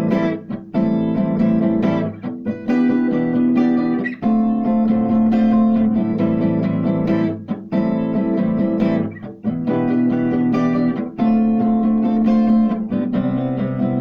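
Guitar music: chords held and changed every second or two, with short breaks between them.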